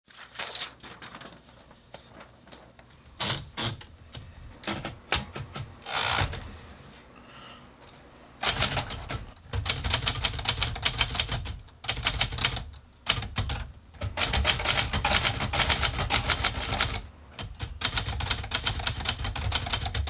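Typewriter typing: a few slow, separate keystrokes, then from about eight seconds in fast typing in runs broken by short pauses.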